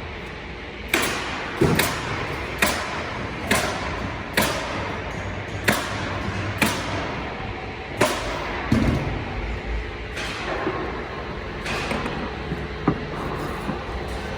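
Nail gun firing nails one after another, about a dozen sharp single shots roughly a second apart, driving large nails into wall framing.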